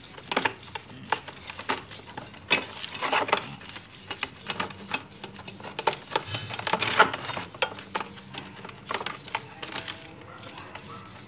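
A cloth scrubbing a brass incense burner with salt and vinegar: irregular rubbing and scraping strokes, with knocks and clinks as the brass pieces are handled against each other in the basin.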